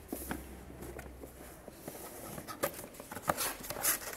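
Scattered light clicks, taps and rustles of a new accessory drive belt and belt tensioner being handled.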